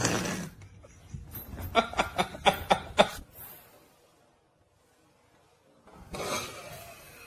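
A person laughing in a quick run of about five short bursts.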